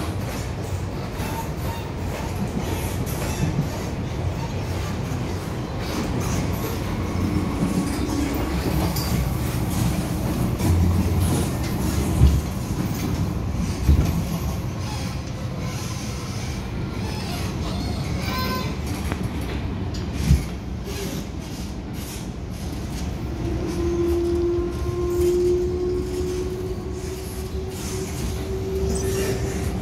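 MTR Island Line M-Train running, heard from inside the car: a steady rumble of wheels on track with a few sharp knocks. In the last several seconds a whine rises slowly in pitch, typical of the traction motors as the train picks up speed.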